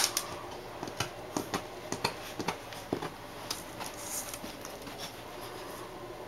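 A beagle puppy's claws and nose tapping and scratching against a mirror: a scatter of light, sharp taps, about two a second, thinning out after about four seconds.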